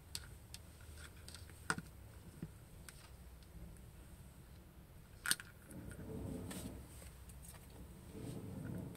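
Faint handling sounds of plastic wired earphones: scattered small clicks and taps, two sharper ones about two seconds and five seconds in, with two soft rustles of the cord in the second half.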